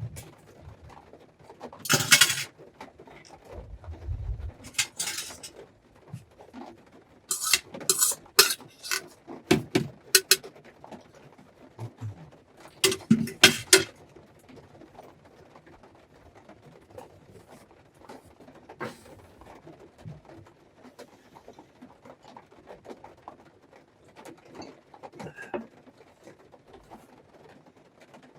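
Clatter of pots, dishes and utensils being handled, in several short bursts of knocks and rattles through the first half, then only scattered light clicks.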